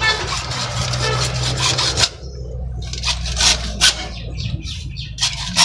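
Repeated rasping strokes of a hand tool scraping across material, over a steady low hum. The strokes run together at first, thin out to a few separate ones in the middle, and turn regular again near the end.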